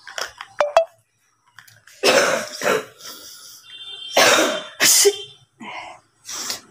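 A woman with a head cold forcefully clearing mucus from her nose and throat, in several hard, noisy blows and coughs about a second apart.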